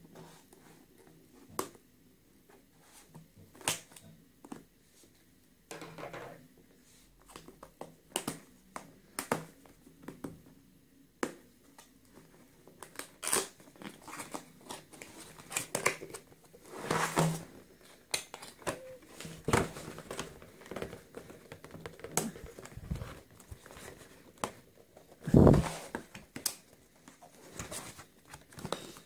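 Scissors snipping at the seal of a cardboard box, then repeated crinkling, tearing and rustling of cardboard and paper as the box is worked open. A single heavy thump about 25 seconds in, as the box is set down on the wooden table.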